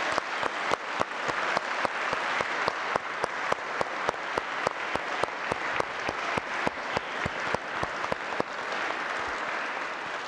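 Congregation applauding, with one nearby pair of hands clapping sharply about four times a second above the crowd. The clapping thins and dies away near the end.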